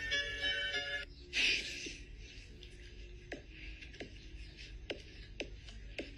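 Music that cuts off about a second in, followed by a brief loud rush of noise. Then a large dog licking a kitten: a few soft wet clicks and smacks, roughly one every half second to a second, over a faint hiss.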